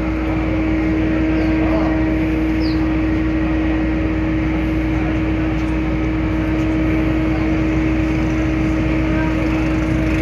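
Roll-on/roll-off ferry's engines running, a steady low hum with one constant tone over a noisy drone.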